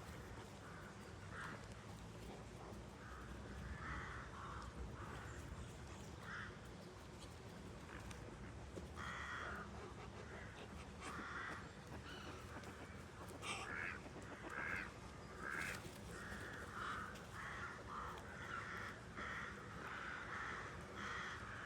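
Birds calling repeatedly with short, harsh calls, sparse at first and coming thick and fast from about nine seconds in, over a steady low background hum.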